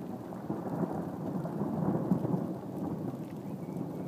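Distant thunder rumbling low. It swells about half a second in, is loudest around two seconds in, and keeps rolling.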